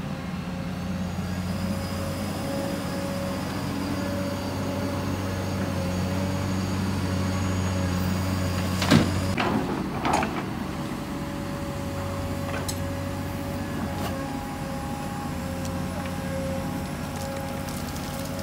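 Hydraulic crawler excavator digging wet soil: its diesel engine runs steadily under a steady whine, with two sharp knocks and scrapes about halfway through as the bucket bites into the ground.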